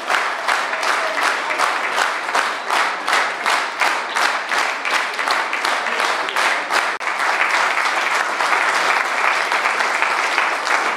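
Audience applauding, many hands clapping with a fairly regular beat of about four claps a second, with a brief dropout about seven seconds in.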